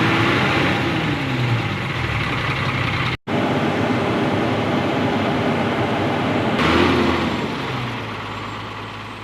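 Truck diesel engine running at idle, its pitch rising and falling a couple of times near the start and again about seven seconds in. The sound cuts out for an instant about three seconds in and fades toward the end.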